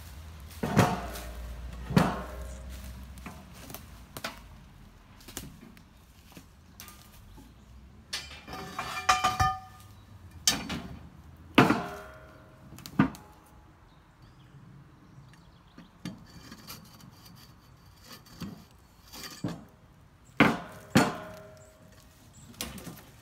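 Pieces of scrap metal clanking and knocking together as they are shifted and pulled from a scrap pile, among them a long rusty steel pipe. The loudest strikes ring briefly, in bunches: two near the start, several around the middle, and two near the end.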